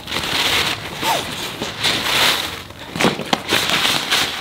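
Rustling and crinkling of a light, smooth, water-repellent drawstring bag being handled and pulled by its cords, in swells, with a few sharp clicks about three seconds in.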